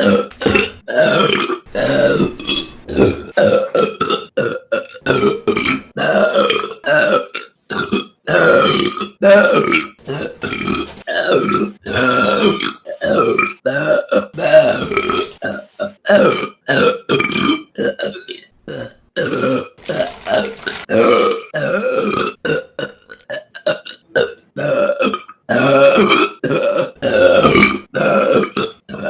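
A woman burping over and over, short burps following one another about once or twice a second with only brief gaps.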